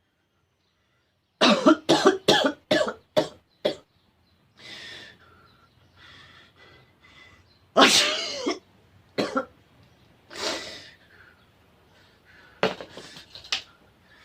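A person coughing: a fit of about seven quick coughs, then breaths, one longer and louder burst with a falling pitch about halfway through, and a few more coughs near the end.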